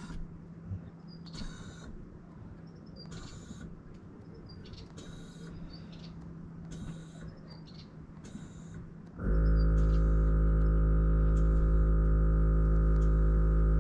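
Air-ride suspension raising the car in short steps: brief hisses of air about every second and a half to two seconds. About nine seconds in, the system's air compressor starts and runs steadily, a loud, even hum.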